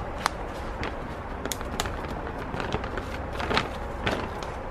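Clear plastic bag crinkling and rustling in a hand as a used transmission clutch disc is handled in it, with a few sharp clicks.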